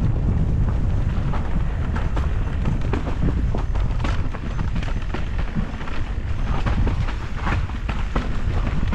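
Wind buffeting the microphone over the rumble of an electric mountain bike rolling down a rough trail, with frequent short clicks and rattles from the bike over the bumps.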